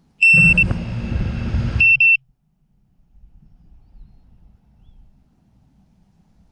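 Two electronic beeps, each a high steady tone, about a second and a half apart, with a loud rumbling noise between them; the rest is faint low background noise.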